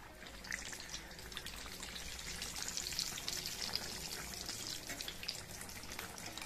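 Batata vadas in gram-flour batter deep-frying in hot oil: a steady crackling sizzle full of small pops, growing louder toward the middle.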